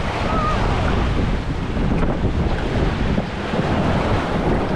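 Wind buffeting the microphone: a loud, steady rumbling rush.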